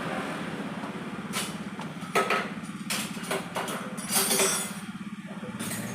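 A motorcycle engine idling steadily, with a series of sharp metallic knocks and clinks over it, the loudest a cluster about four seconds in.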